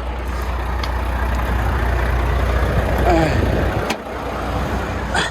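Diesel truck engine idling with a steady rushing hiss over it. A sharp click comes about four seconds in, after which the low rumble drops away.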